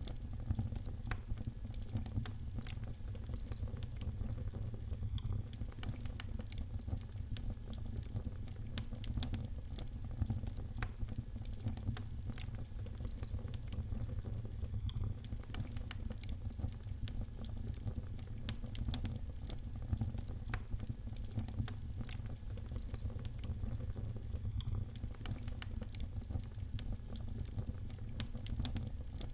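Fire in a fireplace crackling, with many small sharp pops and snaps scattered irregularly over a steady low rumble.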